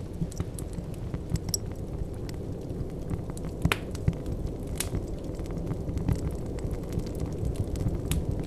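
Ambient meditation sound piece playing: a steady low rumble with scattered crackles and clicks, and a couple of sharper clicks near the middle.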